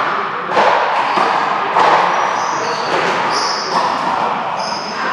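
Repeated thuds of a ball game in a large, echoing hall, about one every second, mixed with short high squeaks typical of sneakers on a court floor.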